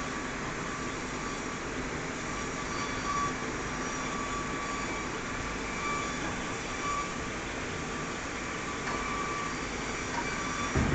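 Band saw and its wood feeding machine running steadily, with a thin high whine that comes and goes and a couple of thumps near the end.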